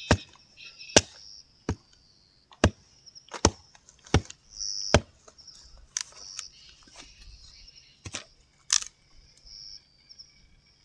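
Machete chopping into a damp wooden stick to split it for kindling, exposing the drier inner wood. There are about seven sharp strokes a little under a second apart, then two more after a pause.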